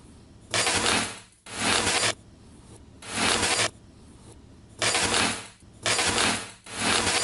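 Small metal magnetic balls rattling and clinking together in six short bursts, each under a second long, with gaps of about a second between them.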